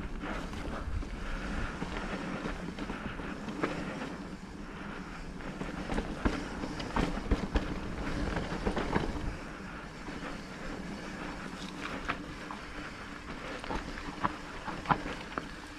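Electric mountain bike ridden over a rough trail: a steady hum with frequent knocks and rattles from the bike over the ground, and wind on the microphone.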